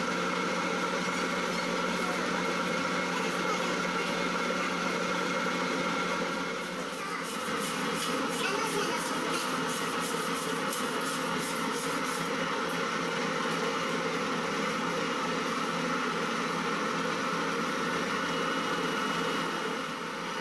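Commercial bakery dough mixer running steadily as it kneads a large batch of bread dough, a constant machine hum. In the middle comes a quick run of light clicks and scrapes as the steel bowl is scraped down by hand.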